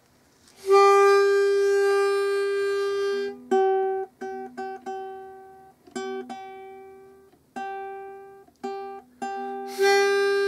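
Concert ukulele being tuned by ear. A pitch pipe sounds a long held reference note. Then two strings are plucked over and over, one note a fifth below the other, while the pegs are turned. The pipe's note sounds again near the end.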